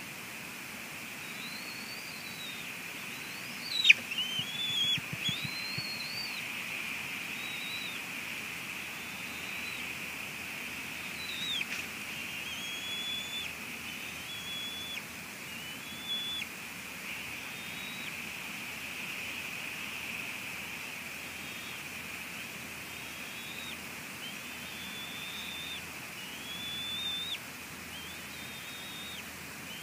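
Bald eagle giving a long series of short, high whistled calls, roughly one a second, over a steady high hiss. A sharp knock about four seconds in is the loudest sound.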